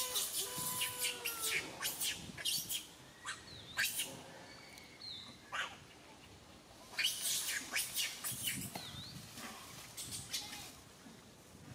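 Small birds chirping in short, sharp clusters, with a few thin high whistled notes. The end of a rooster's crow, a held note, trails off in the first second and a half.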